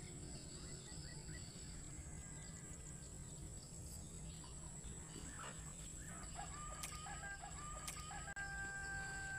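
A rooster crowing, faint, in a few short notes and then a longer held one near the end, over a steady high-pitched insect drone.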